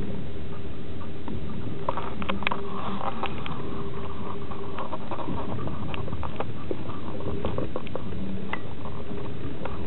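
A moving passenger train heard from inside an open-berth sleeping car: a steady rumble of wheels on rails under a faint hum. Quick light clicks and rattles, thickest from about two to seven seconds in, run over it.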